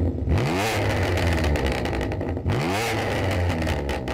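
BMW M2 Competition twin-turbo straight-six through an Armytrix decat valve exhaust, revved twice from idle, with a quick rise and fall in pitch each time.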